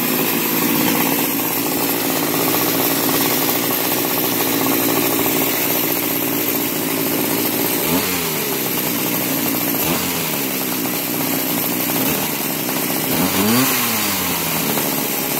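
Small two-stroke weed eater engine on a gas-converted Razor mini dirt bike, running steadily. In the second half it is revved in a few short blips, its pitch jumping up and falling back each time.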